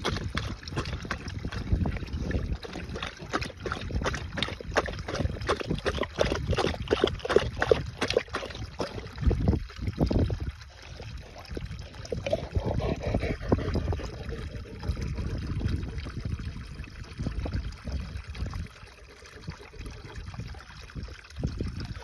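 Akbash dog lapping water from a stone trough, quick regular laps at about three to four a second, stopping about nine seconds in. Water pours steadily from a pipe spout into the trough.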